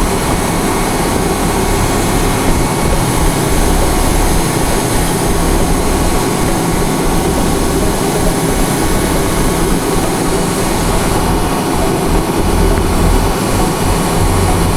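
Grob G120TP trainer's Rolls-Royce 250 turboprop engine and propeller running steadily, a loud, even drone.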